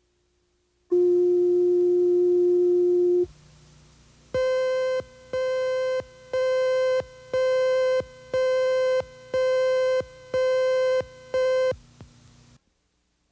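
Electronic slate tones on a TV news videotape leader: a steady, fairly pure tone held for about two seconds, then, after a short pause, eight short higher-pitched beeps, one a second, counting down to the next story.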